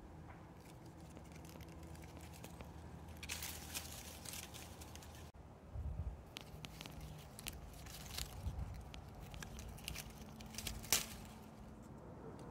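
Faint rustling and crackling of leafy oak twigs and acorns being handled, in short scattered bursts with a sharp snap near the end, over a low steady background hum.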